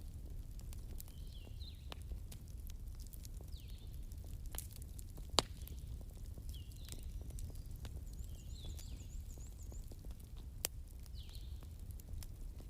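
Bonfire crackling: irregular sharp pops and snaps over a steady low rumble, with two louder pops about five and ten and a half seconds in. A faint short high chirp recurs about every two seconds.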